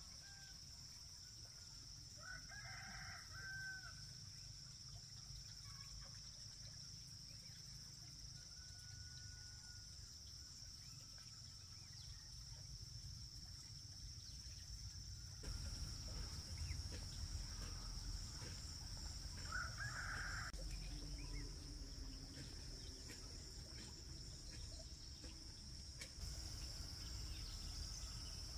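A rooster crowing twice, once a few seconds in and again about twenty seconds in, over a steady high-pitched drone of insects.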